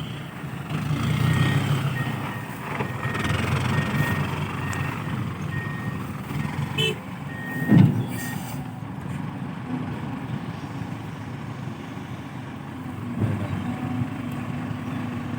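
A dump truck reversing, its backup alarm beeping about twice a second over the low, steady running of its diesel engine. The beeping stops about eight seconds in, around a single sharp knock, and the engine keeps running.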